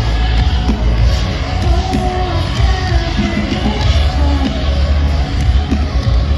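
Live metalcore band playing through a festival PA: loud distorted guitars, bass and drums with vocals, recorded from within the crowd.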